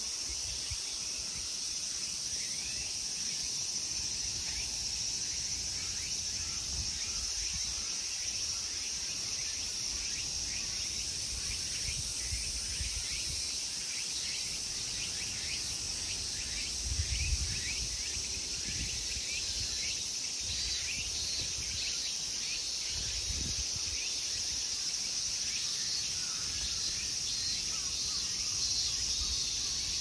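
Steady, high-pitched drone of a chorus of summer insects, with many short chirping calls flickering over it. A couple of brief low rumbles come partway through.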